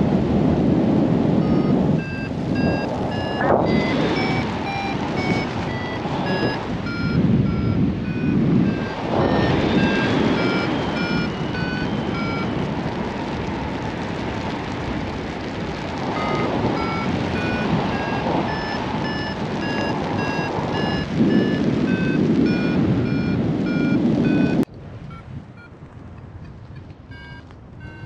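A paragliding variometer beeping its climb tone: short high beeps, about two to three a second, stepping in pitch, which signal that the glider is going up. Under it is loud wind and rain noise on the microphone, which drops away suddenly near the end.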